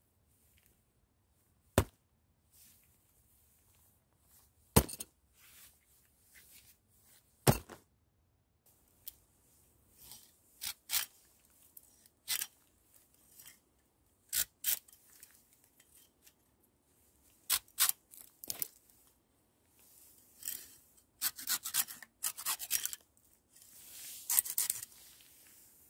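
A knife cutting and scraping at thin branches: a few sharp, separate clicks in the first several seconds, then a run of irregular short scraping strokes and clicks that gets busiest near the end.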